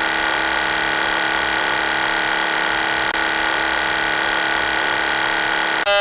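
Aircraft stick shaker: the control column's vibrator motor running as a steady, loud mechanical rattle, the warning of an approaching stall.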